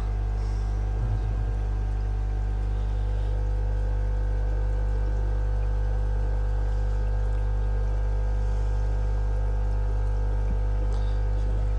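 Steady low hum of fish-room equipment, an even drone with overtones, over a faint constant wash of moving water.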